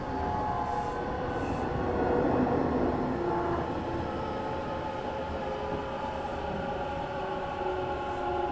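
Hanshin 1000 series electric train running between stations, heard from inside the car. A steady rumble of wheels on rail carries several whining tones from the traction motors and inverter, and the rumble swells briefly about two seconds in.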